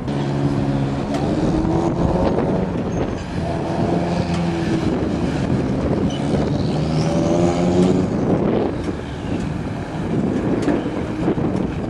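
Sport motorcycle engine accelerating through the gears: its pitch climbs, drops back at an upshift and climbs again, three times over, with wind rushing past.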